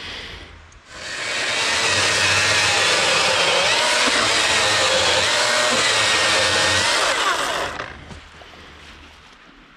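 Battery-powered chainsaw cutting into an old reclaimed wooden beam, making a row of kerf cuts to notch it. It runs steadily for about seven seconds from about a second in, then stops.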